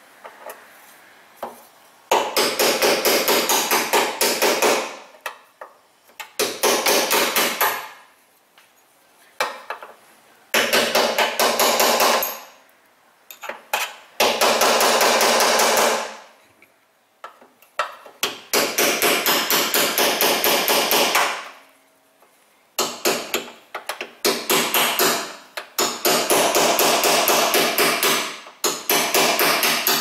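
Ball-peen hammer rapidly tapping a steel punch to drive ground-out steel-core rivets through the rear door's sheet metal. The metal-on-metal blows come in runs of quick strikes, each a second or a few long, with short pauses between.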